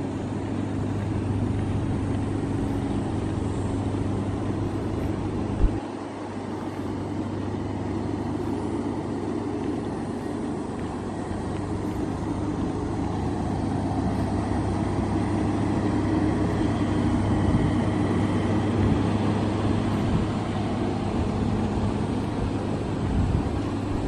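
Toyota HiAce van engine idling with a steady low hum, with outdoor noise around it. There is one sharp click about six seconds in.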